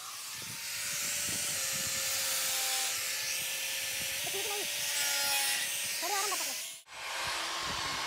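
Angle grinder cutting into a thin sheet-metal oil tin: a steady high hiss from the disc over the motor's whine. It cuts off abruptly about seven seconds in, then starts again with a lower whine.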